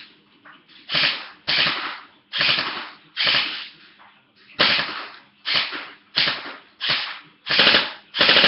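G&G CM16 electric airsoft rifle (AEG) firing about ten short bursts on full auto, roughly one every 0.7 seconds, loud and sharp.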